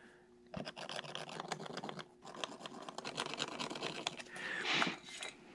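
A pencil scratching on a drop ceiling tile, marking screw holes through a speaker mounting bracket, in quick short strokes with a brief pause about two seconds in.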